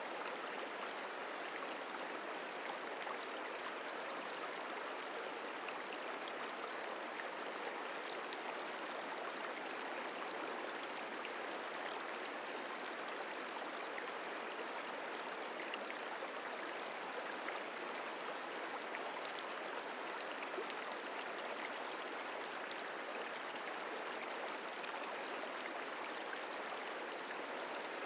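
The Merced River running: a steady, even rush of flowing water.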